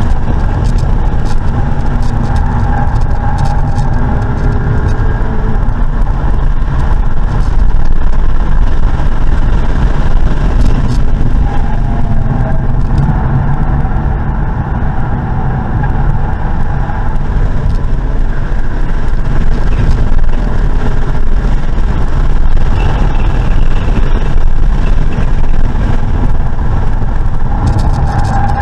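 Car being driven on a race track, heard from inside the cabin: continuous engine, tyre and wind noise with a heavy low rumble.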